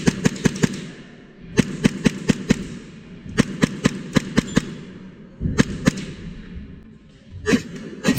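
Airsoft guns firing quick strings of about six or seven sharp shots at roughly seven a second, three times, then a few single shots near the end.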